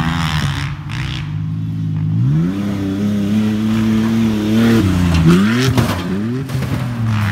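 Pickup truck engine at full throttle as the truck charges across a dirt track, its pitch climbing steeply about two and a half seconds in, dipping and climbing again around five seconds, then falling away near the end. A few knocks and rattles come through around five to six seconds as it crosses rough ground.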